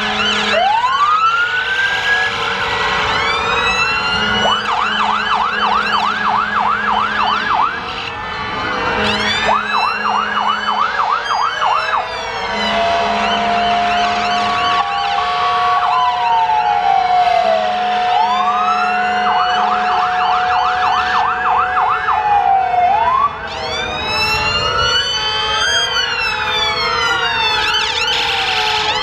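Several fire engines sounding their sirens at once. Long rising wails and rapid yelps overlap, and horns blast on and off underneath.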